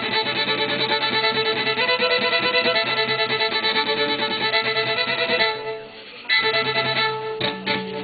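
Fiddle playing a tune, with a brief drop in sound about six seconds in before the playing picks up again.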